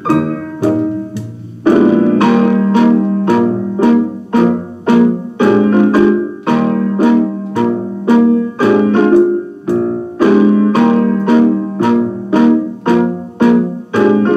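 Piano music: a bouncy tune of short, detached notes and chords struck about twice a second, with a fuller stretch of held chords coming in a little under two seconds in.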